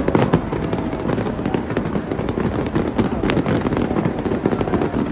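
Fireworks going off: a dense, continuous crackle of many overlapping small bangs, with no pause.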